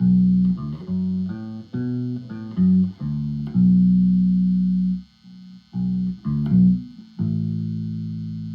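Lakland PJ electric bass played through a small practice amp, bridge (J) pickup soloed with the tone knob full up: a short bass line of plucked notes, some held for about a second and a half. A faint steady high hum sits underneath.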